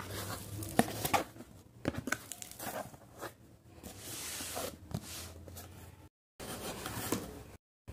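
A cardboard parcel being torn open by hand: packing tape ripping and cardboard flaps and box being handled, in irregular tearing, crinkling and scraping noises with sharp clicks. The sound drops out to silence twice near the end.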